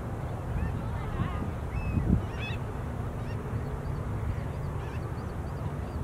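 Wild birds giving scattered short, faint calls over a steady low rumble, with one brief louder sound about two seconds in.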